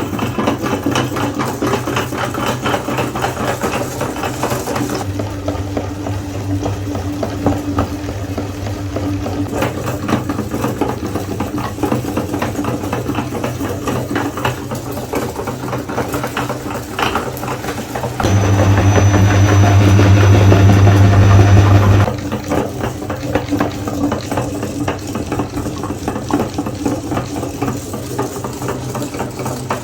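Electric meat grinder running steadily with a low motor hum, crunching and grinding Oreo cookies with a dense crackle. For a few seconds about eighteen seconds in the hum gets louder and heavier.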